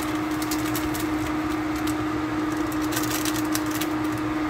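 Steady electrical hum, with a foil seasoning sachet crinkling as fingers squeeze and tap it, in short spells about half a second in and again around three seconds in.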